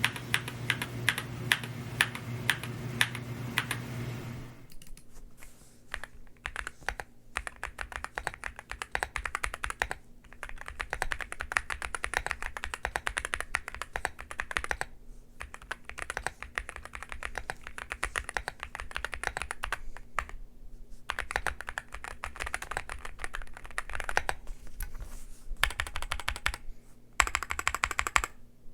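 Fast, continuous typing on a Rainy75 mechanical keyboard, with a few short pauses between bursts of keystrokes. About four and a half seconds in the sound changes and loses much of its low end.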